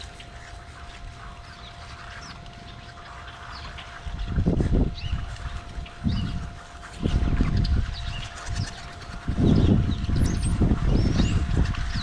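A large flock of small birds chirping and calling throughout. From about four seconds in, repeated loud low rumbling gusts cover it: wind buffeting the microphone.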